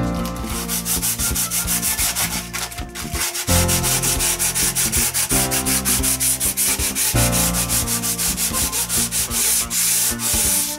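Hand sanding of a scratch-built model railway carriage body: a sanding block rubbed back and forth in quick, even strokes, with a brief pause about three seconds in.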